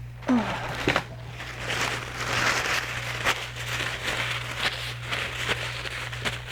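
Close-up crackling and crunching of cooked crab shells being cracked and picked apart by hand, with many sharp clicks, over a steady low electrical hum.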